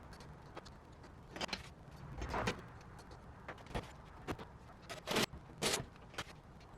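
Irregular clacks, knocks and short scrapes of objects being handled and set down, about a dozen in all, the loudest a pair around five seconds in.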